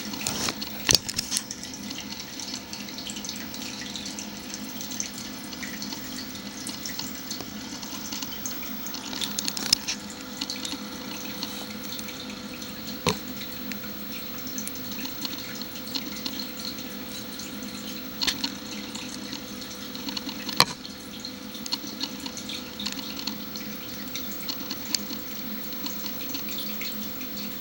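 Steady trickle of running water over a low steady hum, with a few sharp clicks scattered through.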